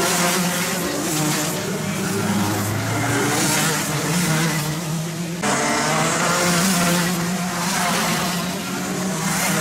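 Racing kart engines buzzing as several karts go through a corner one after another, the pitch rising and falling with the throttle.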